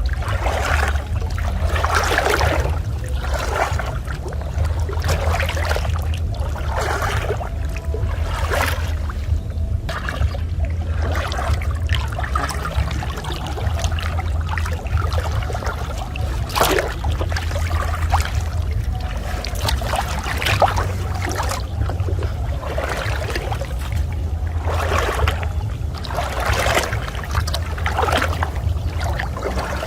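Water splashing and sloshing in repeated bursts every second or two, over a steady low rumble.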